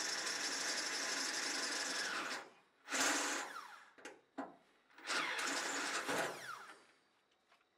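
Cordless drill boring a hole in the stainless steel tank wall for a blind rivet, running steadily for about two and a half seconds and then stopping. Two shorter runs follow, about a second and three seconds later, each falling in pitch as the motor winds down.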